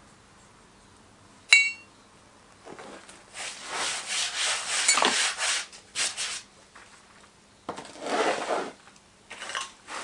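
A single ringing metallic clink a second and a half in, then several seconds of gritty scraping and rubbing as loose greensand is worked away from the face of the mould. Near the end the metal cope flask is set back down onto the drag, with more rubbing and scraping.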